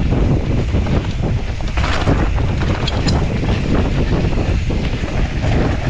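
Loud wind noise buffeting the microphone of a camera on a mountain bike riding downhill, with scattered knocks and rattles from the bike on the rough trail.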